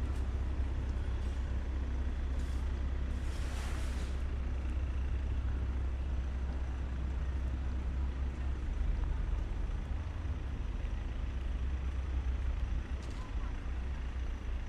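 City street ambience: a low, steady rumble of road traffic, with a short hiss about three and a half seconds in.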